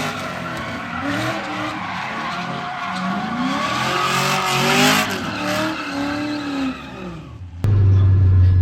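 Cadillac CTS-V's LS2 V8 drifting: the engine revs rise and fall repeatedly while the rear tires squeal and skid across the pavement. The sound cuts off abruptly a little past seven seconds in.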